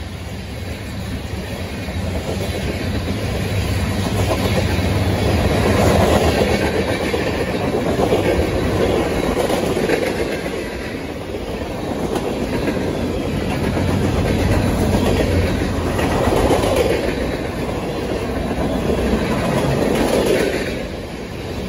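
Freight train cars (open hoppers and tank cars) rolling past: a continuous noise of steel wheels running on the rails that swells and eases as the cars go by.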